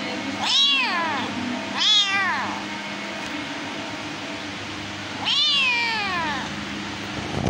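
House cat meowing three times, each a short call that rises and then falls in pitch; the third, about five seconds in, is longer and trails downward.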